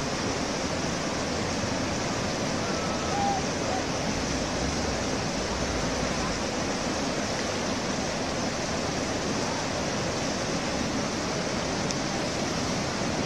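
Fast mountain river water rushing through boulder rapids: a steady, even rushing noise.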